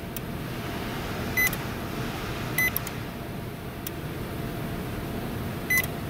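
Panasonic microwave oven's keypad giving three short high beeps, with a few sharp relay clicks from the control board in between. No magnetron or fan hum comes on: the oven lights up but does not heat.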